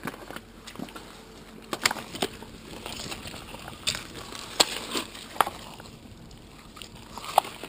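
Stones and broken shells clacking and crunching on a shell-covered beach as rocks are lifted and turned over, with about half a dozen sharp clacks spread irregularly between softer crunching.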